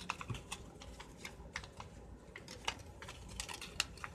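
A sheet of paper being folded and pressed into creases by hand for an origami model: irregular crisp crackles and small taps.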